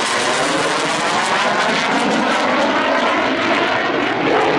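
F-16 fighter jet's engine running at high power as it maneuvers overhead: a loud, steady jet roar whose tone slowly sweeps and phases as the aircraft moves.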